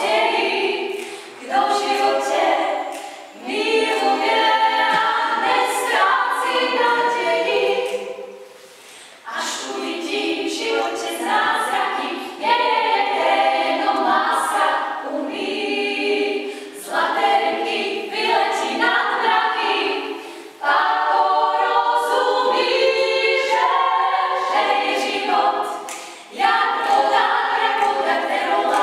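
Female vocal quartet singing a cappella, unaccompanied voices in harmony, in phrases separated by short breaks, the longest about eight seconds in.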